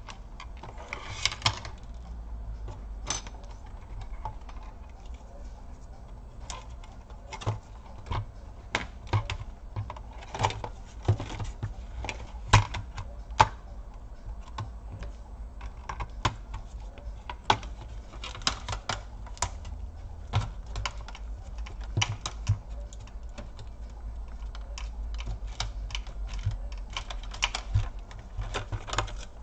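Plastic casing of a Lenovo ThinkPad T430 laptop being worked apart by hand: irregular small clicks and snaps of plastic clips and panel edges, sometimes several in quick succession, with a few louder snaps. The case is still held by a forgotten screw.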